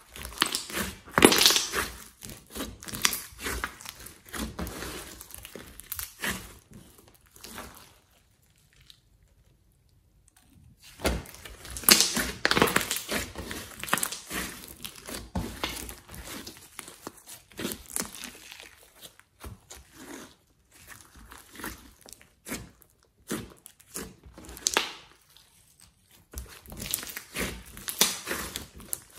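Hands squeezing, folding and pressing a large slime mixed with clay and glitter: sticky squishing with many small clicks, in irregular bursts. There is a pause of a couple of seconds about a third of the way in.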